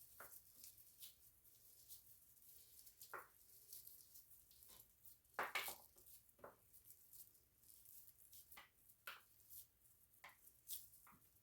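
Near silence with faint, scattered soft taps and clicks of hands handling chickpea patties and kitchen things, one slightly louder knock about five and a half seconds in.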